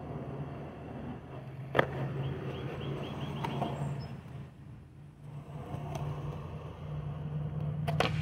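Skateboard wheels rolling on concrete with a steady low rumble. There is a single sharp knock about two seconds in, and near the end comes the sharp snap of the tail popping off the ground as the board is flipped into the air.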